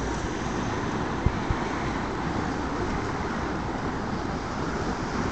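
Steady rushing noise of wind and surf, with two dull low knocks close together a little over a second in.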